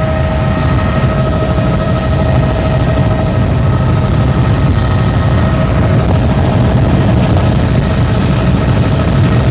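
Helicopter running in flight, heard from aboard: a steady, loud rotor and engine drone with a constant high-pitched whine over it.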